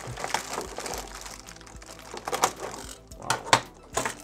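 Clear plastic packaging (a blister tray and a plastic bag) crinkling and crackling as it is handled and pulled open, in irregular clicks with a few sharper crackles in the second half.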